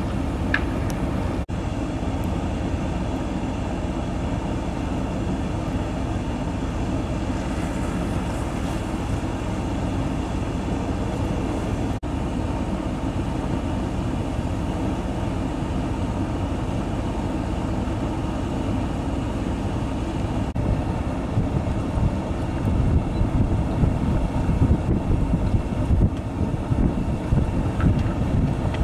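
Blizzard wind making a steady low roar, with hard gusts buffeting the microphone over the last several seconds.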